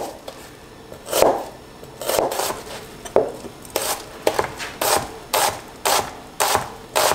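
Chef's knife chopping a yellow onion fine on a cutting board: a series of knife strikes, irregular at first, then settling into a steady rhythm of about two a second.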